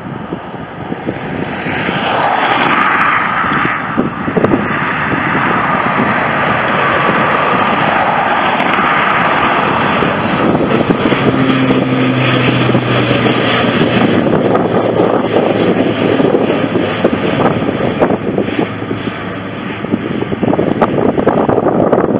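ATR twin-turboprop airliner climbing out overhead just after takeoff, engines and propellers at climb power. The noise swells over the first couple of seconds and stays loud as the aircraft passes, with a low propeller hum coming in about halfway through.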